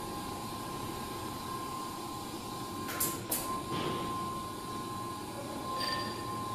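Electric hydraulic operating table's pump motor running steadily with a thin high whine as the tabletop is adjusted. There are a couple of clicks about three seconds in and a short beep near the end.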